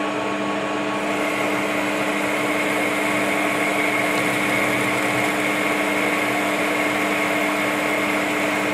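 Centre lathe running with a boring bar cutting inside the bore of the spinning workpiece, opening it out to the thread's minor diameter. It is a steady machine hum, and a higher whine comes in about a second in.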